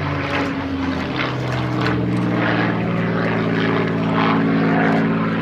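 Radio-controlled model aircraft motor and propeller heard in flight, a steady buzz whose pitch drops about a third of a second in and then climbs slowly as the throttle changes, with gusts of wind rushing past.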